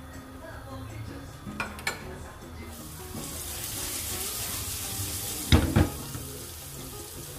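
Minced garlic frying in oil in a nonstick wok, a steady hiss of sizzling that starts about three seconds in. Before it a metal spoon taps the pan twice, and about five and a half seconds in the wok knocks twice loudly against the gas burner grate as it is moved.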